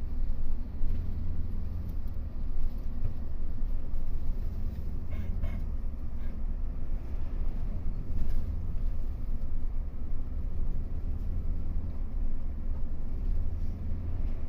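Bus engine and road noise heard from inside the cabin: a steady low rumble as the bus drives along the highway.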